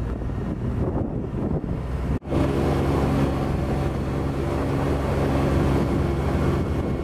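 Side-by-side off-road vehicle's engine running with wind buffeting the microphone. There is a brief dropout about two seconds in, after which the engine hum is steady and even.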